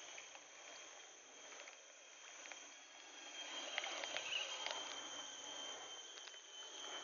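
Steady high-pitched chirring of tropical forest insects, with scattered faint clicks and a louder rustling noise from about halfway through.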